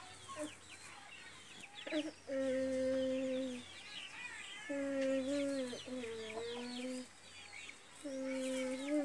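Village chickens: a dense run of high, falling peeps, like chicks, with three long, low, steady calls, the first about two seconds in, another in the middle and one near the end.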